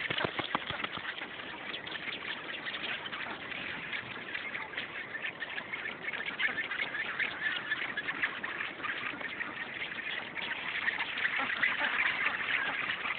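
Rockhopper penguin colony calling: a dense chorus of many overlapping harsh squawks and brays, getting a little louder near the end.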